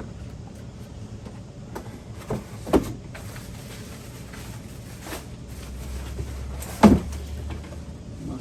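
Plastic monitor parts being handled and fitted together: a few separate knocks and clunks, the loudest about seven seconds in.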